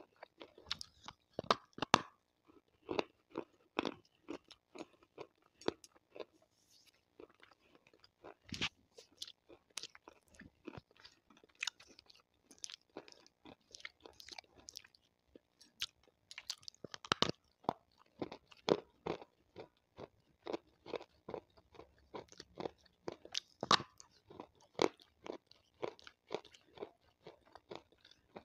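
Water-soaked slate stone crunching as it is bitten and chewed close to the microphone: a long run of sharp, irregular crunches, some much louder than others.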